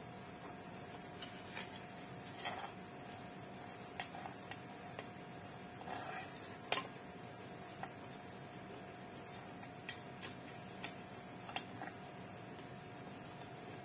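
Light, irregularly spaced clicks and taps of long metal aquascaping tweezers against stone and gravel in a dry tank, the sharpest one near the end, over a faint steady hum.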